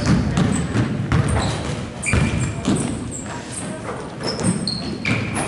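Basketball game on a hardwood court: sneakers squeaking in short, high chirps, the ball thudding, and players' and onlookers' voices.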